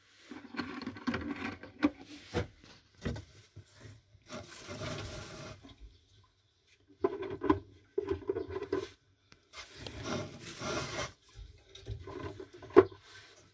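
Hands rummaging through the hay in a wooden nest box and picking up hen eggs: irregular rustling of dry straw in several bouts, with light knocks and one sharp, loud knock near the end.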